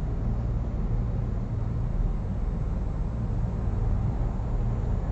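Steady low hum with a faint hiss over it and no distinct events.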